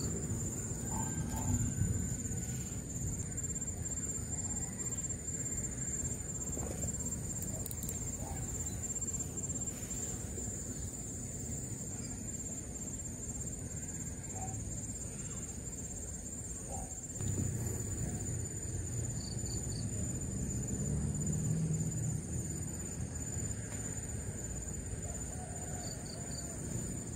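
Crickets trilling in one steady, high-pitched, unbroken drone, with a low rumble beneath that grows louder a little past the middle.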